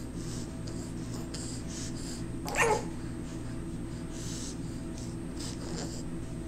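A baby's single short squeal, falling in pitch, about two and a half seconds in, over a steady low background hum.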